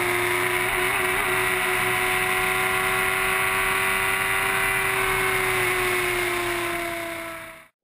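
Formula 1000 racecar's 1000 cc motorcycle engine running at high, steady revs, heard onboard over a steady rushing noise. The pitch sags slightly in the last couple of seconds and the sound then fades out.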